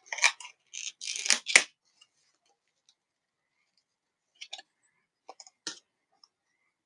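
Hands handling laptop RAM modules: a quick flurry of small clicks and scrapes in the first second and a half, then a few faint ticks.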